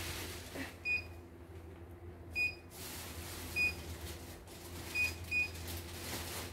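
CNY E900 embroidery machine's control panel giving short, high key-press beeps as its touchscreen is tapped, five in all, two of them close together near the end. A steady low hum runs underneath.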